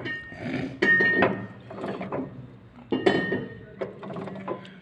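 Ratchet wrench clicking in short bursts and steel tools clinking with a metallic ring as a bolt is worked inside an open gearbox casing.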